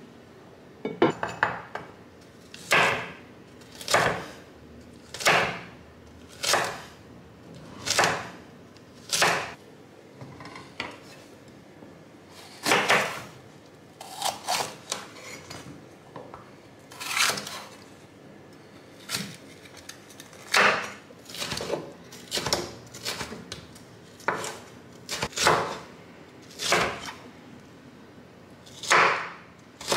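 Chef's knife cutting a red bell pepper on a wooden cutting board: separate knocks of the blade striking the wood, about one a second, with a few quicker runs of cuts.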